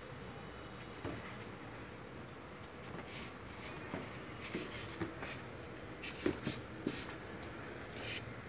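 A dog playing with a chew toy on a tiled floor: scattered light knocks and clicks of the toy and paws on the tiles. They are sparse at first, then come more often and louder in the second half.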